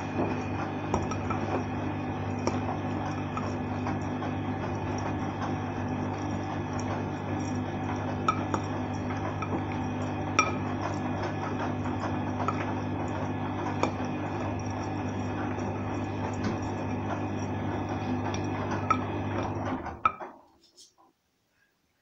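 Arçelik front-loading washing machine filling with water at the start of a Cotton 40 Short wash: a steady hum and rush of incoming water, with occasional light clinks as the load moves in the drum. The sound stops suddenly near the end.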